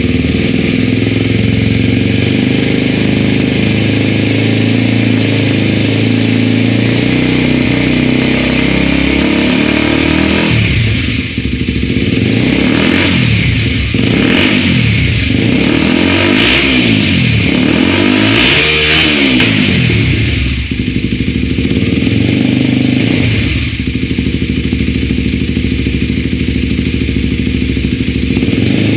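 Kawasaki Ninja 250RR Mono's single-cylinder four-stroke engine, breathing through a Yoshimura R-77D slip-on exhaust, idling steadily. About ten seconds in it is revved in a series of throttle blips, each rising and falling, with one more blip a little later before it settles back to idle.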